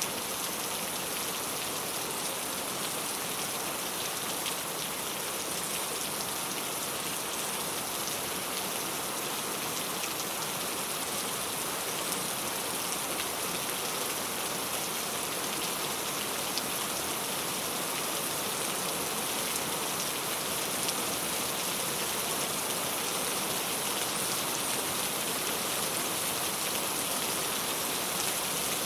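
Steady rain falling on a clay-tile roof, a dense, even patter of drops that holds constant throughout.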